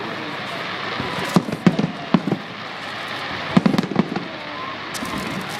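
Fireworks finale: aerial shell bursts booming in quick, irregular succession, several close together, over a continuous noisy crackle.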